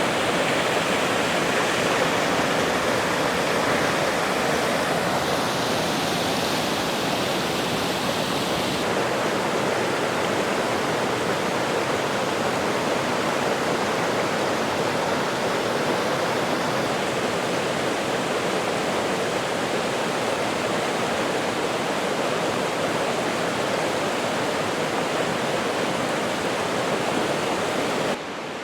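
Steady rushing of a mountain creek tumbling over small waterfalls, an even roar of water that cuts off abruptly just before the end.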